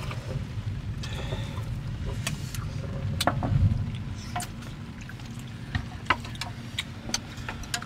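Chopsticks and spoons clicking and clinking against ceramic bowls and plates during a meal, over a steady low rumble.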